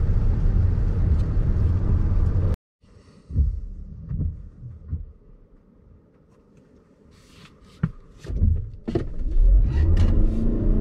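Cabin sound of a Toyota RAV4 plug-in hybrid. A loud low drive drone cuts off after about two and a half seconds. Then the cabin goes quiet apart from a few low thumps and clicks, and near the end the car pulls away at full throttle, its engine note rising.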